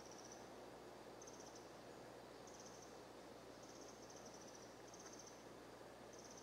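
Near silence with a faint even hiss. A small animal's high, rapid trill repeats about once a second, each one brief.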